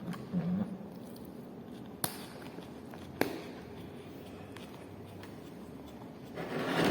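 Eating sounds at a table: two sharp clicks or knocks about a second apart, then a louder rushing, noisy sound near the end.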